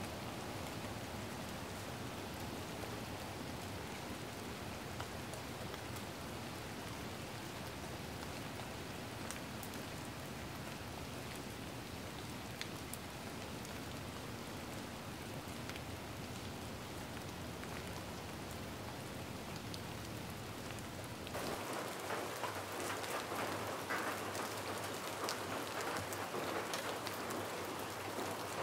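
A steady hiss of fine, rain-like patter made of many small ticks. It steps up louder and brighter about 21 seconds in.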